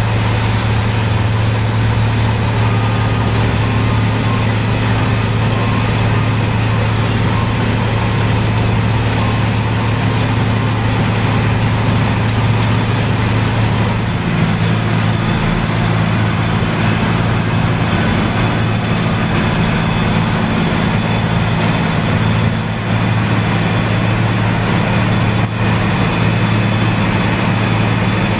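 Diesel asphalt milling machine running steadily under load, its engine giving a strong low hum beneath a dense grinding noise from the cutting drum chewing up the old pavement. The engine note shifts slightly about halfway through.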